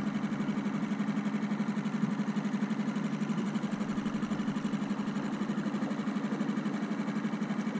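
Small outboard motor pushing a dinghy, running steadily with a fast, even putter.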